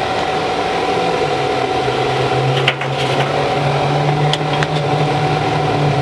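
Electric fan running steadily with a whirring hum, with a few light clicks about halfway through.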